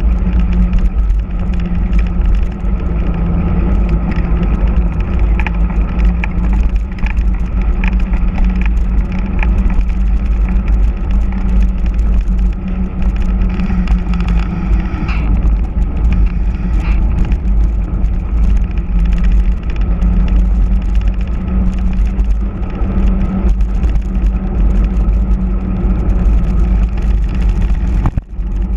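Heavy wind rushing over the microphone of a camera on a mountain bike descending fast, with a steady hum from the all-terrain tyres rolling on tarmac. The rush dips briefly near the end.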